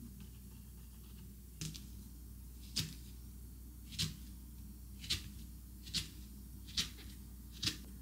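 Kitchen knife slicing a banana on a wooden cutting board, the blade knocking on the board seven times at about one cut a second.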